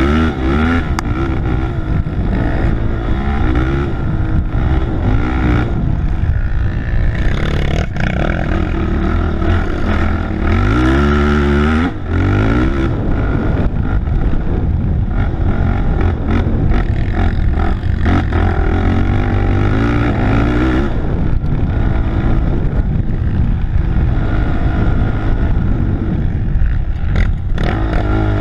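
Racing quad's engine running hard, its revs rising and falling over and over as the rider works the throttle, with a sharp rising rev about eleven seconds in.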